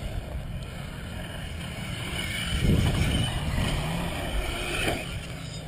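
Radio-controlled cars running on a dirt track, growing louder about halfway through, over wind rumbling on the microphone.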